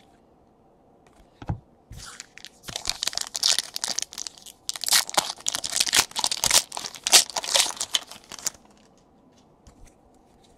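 Trading card pack wrapper being torn open and crinkled by hand: an irregular crackling that starts about two seconds in and lasts about six seconds.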